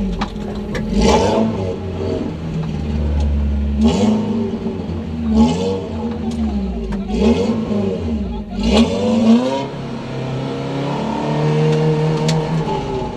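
Modified off-road 4x4's engine revving in repeated surges, rising and falling several times, as it strains to climb a steep dirt bank at a crawl.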